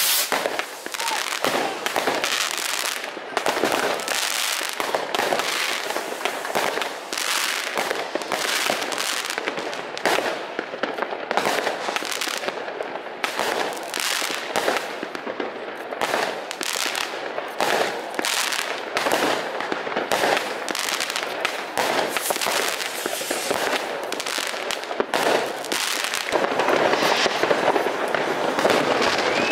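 Many fireworks and firecrackers going off at once: a dense, continuous stream of sharp bangs and crackles with no pause.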